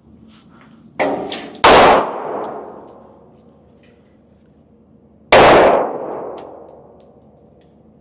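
Two loud handgun shots about three and a half seconds apart, each followed by a long echoing decay as in an indoor range, with a quieter bang about half a second before the first.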